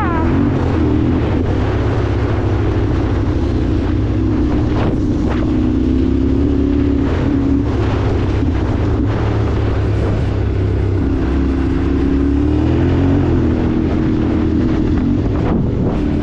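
New Holland T7 tractor engine running steadily while driving, with wind noise on the microphone; the engine note dips slightly and comes back up about two-thirds of the way through.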